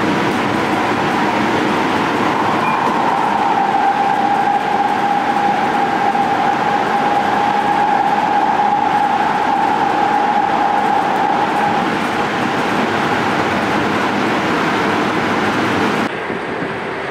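LA Metro light-rail train running at speed, heard from inside the car: a steady rumble with a high whine that drops slightly in pitch a few seconds in and fades out later. Near the end the sound cuts abruptly to something quieter.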